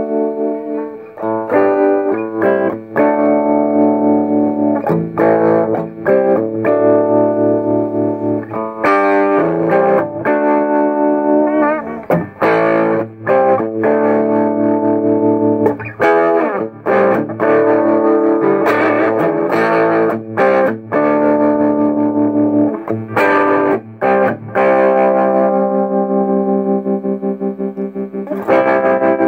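Electric guitar, a Gibson Les Paul Traditional, played through a small KNOX Trem-Tone tube combo amp with its tremolo on and a gritty overdriven tone: strummed chords and riffs, and near the end a held chord that pulses evenly with the tremolo.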